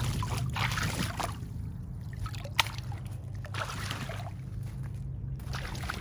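Water sloshing and splashing in a small inflatable paddling pool as a child sweeps it out over the side with her hand, in several separate surges. A single sharp click comes about two and a half seconds in, and a steady low hum runs underneath.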